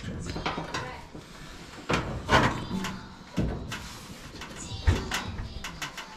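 Knocks and clatters of dryer parts being handled inside an open Whirlpool dryer cabinet during belt reinstallation, with two louder clanks about two and five seconds in.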